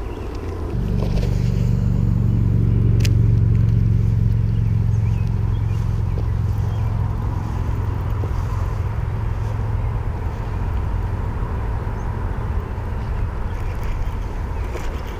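A low, steady engine hum that comes up about a second in, is loudest a few seconds later and then slowly fades, with one sharp click partway through.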